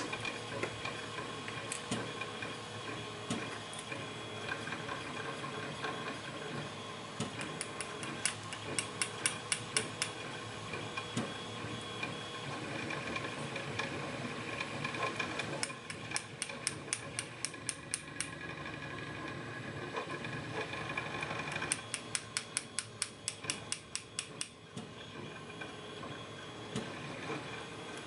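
Three runs of rapid small metal clicks, about six a second: a thin steel tool working inside a brass padlock to free stubborn pins while the lock is being gutted.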